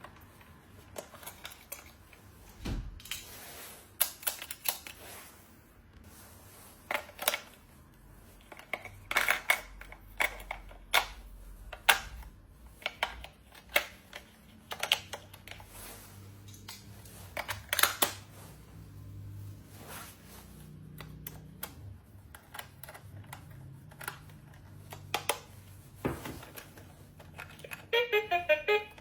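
Irregular clicks and taps of small plastic toy pieces and packaging being handled, some in quick clusters. Near the end there is a brief pitched musical tone.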